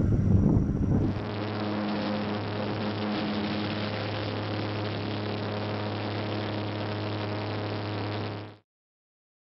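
Steady drone of a small propeller airplane's engines and propellers heard from inside the cabin, with a strong low hum and a hiss over it. It starts about a second in after a louder noisy sound and cuts off abruptly near the end.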